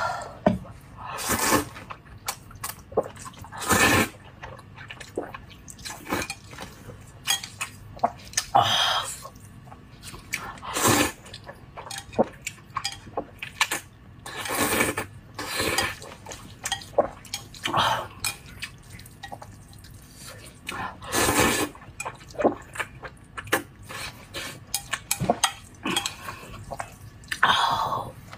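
Close-up eating of saucy Samyang spicy instant noodles: a wet slurp every few seconds as mouthfuls are sucked in, with chewing and chopsticks clicking against the plate between them.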